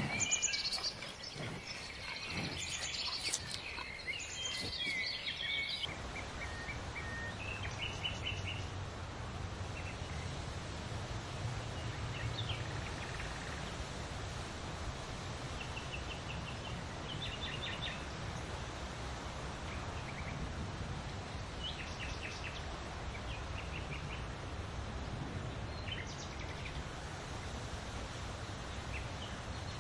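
Outdoor ambience of songbirds chirping over a steady low background noise. The calls are dense for the first few seconds, then come as short scattered chirps.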